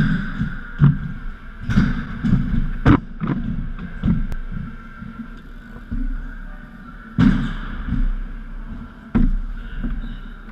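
BMX wheels rolling over wooden skatepark ramps, a low rumble broken by several sharp thuds and knocks of tyres landing and striking the ramps.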